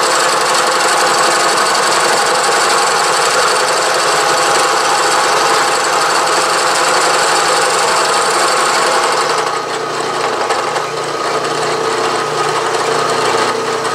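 A milling machine's gear cutter cutting a tooth space in a steel gear blank held in a dividing head, making a loud, steady cutting noise. About nine and a half seconds in it grows a little quieter.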